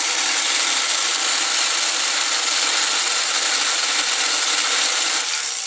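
Lionel 497 coaling station's hoist motor running, a steady loud mechanical whirring grind as its gearing drives the coal bucket hoist.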